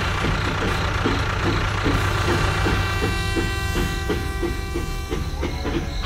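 Battery-powered toy steam locomotive running on plastic track: its small motor whirs and whines steadily, with a regular clicking about three times a second.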